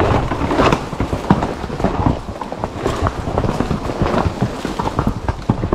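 Hooves of mules walking on a rocky trail, clopping and knocking on stone in an irregular rhythm of several strikes a second.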